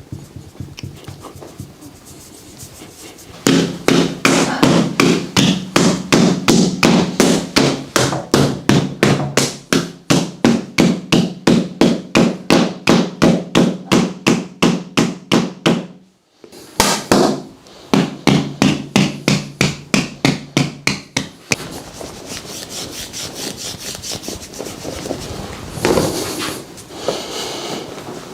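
Rapid, evenly paced percussive massage strikes on the body, about four a second, with a steady low hum under them. They break off briefly about halfway, resume, and stop a few seconds later, leaving softer rubbing.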